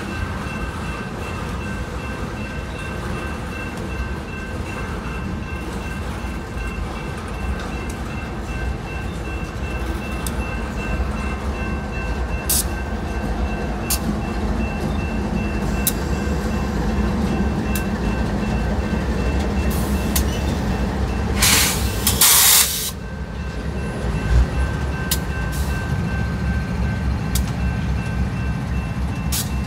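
Freight train rolling past with a steady rumble of steel wheels on rail and scattered clicks, then rear-end diesel locomotives working as distributed power units, pushing and running. A crossing bell dings steadily throughout, and a brief loud burst of noise comes a little past twenty seconds in.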